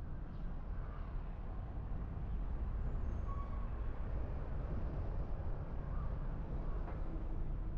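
Steady low rumble of a car driving: engine and tyre road noise, with a few faint, short, high chirps over it.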